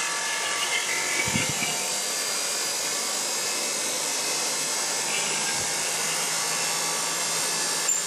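Netgain Warp 9 DC motor and the coupled Siemens 1PV AC motor running at a steady speed on a test bench, a loud, even electric-motor whine over a low hum.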